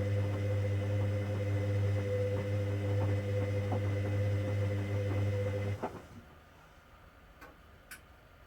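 Hoover Dynamic Next washing machine during a 90°C cotton main wash: a steady low hum with light ticking that cuts off suddenly about six seconds in, leaving near quiet with a couple of faint clicks.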